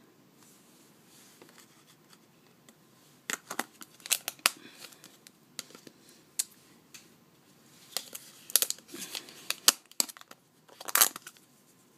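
Handling noise: a scatter of sharp clicks, taps and rustles as small clear plastic glitter pots are moved and swapped, with quiet stretches between.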